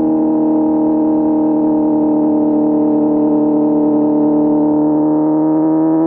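Inline-four motorcycle engine running under way at high revs, holding a steady pitch.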